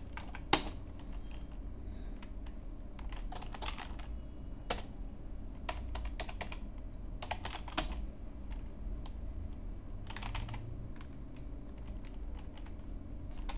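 Typing on a computer keyboard: irregular key clicks in short runs with pauses between them, the sharpest click about half a second in, over a steady low hum.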